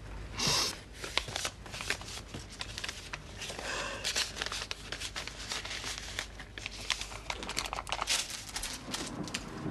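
Paper rustling and crinkling in irregular small bursts as a handwritten letter and its envelope are handled and folded.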